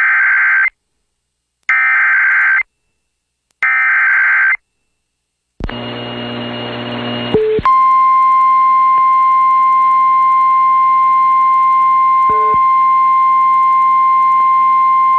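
An Emergency Alert System SAME header: three short, screeching digital data bursts about a second apart. After a couple of seconds of radio hiss, NOAA Weather Radio's steady single-pitch warning alarm tone (1050 Hz) sounds for about nine seconds, signalling a new warning.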